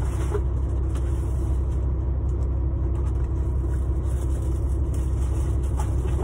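Semi truck's diesel engine idling steadily, a low even rumble heard from inside the cab.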